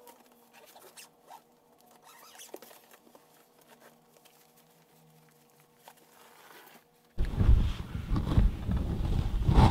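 Faint rustling and small clicks of clothes and a suitcase being handled while packing. About seven seconds in, loud rubbing and knocking starts suddenly: a hand handling the camera right at its microphone.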